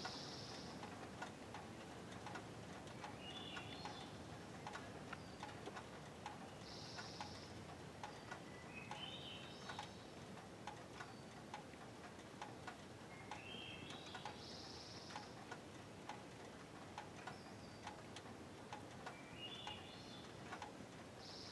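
A bird repeating a short phrase of quick notes that climb in pitch, about every five seconds, with a brief hissing burst every seven seconds or so. Under it runs a faint steady ticking about twice a second.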